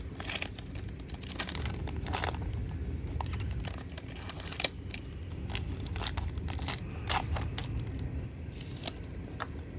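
Foil trading-card pack wrapper being torn open and crinkled in the hands, an irregular run of crackles and clicks.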